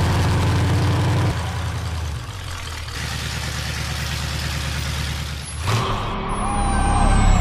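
Hot rod engine with a row of stacked carburettors running, a rapid low exhaust beat. It drops back a little about a second in, then from near the end gets louder and fuller, as if revved or pulling away, with a thin high falling whistle over it.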